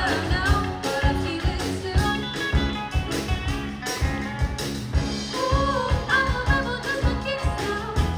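Live rock band playing through a PA: a steady drum-kit beat under electric guitars and bass, with sung vocals coming in near the start and again past the middle.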